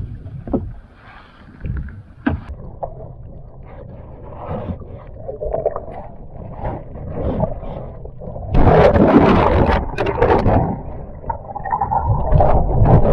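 Knocks and rustling on a fishing kayak, then about eight seconds in a sudden, much louder rush of water and splashing that keeps on to the end.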